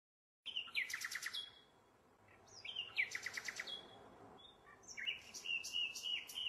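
A small songbird singing three short phrases, each a quick high note followed by a fast run of repeated chirps.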